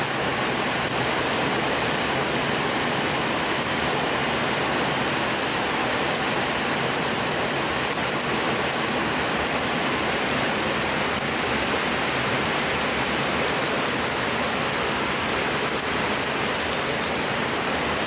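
Heavy rain falling steadily, an even hiss that holds the same strength throughout.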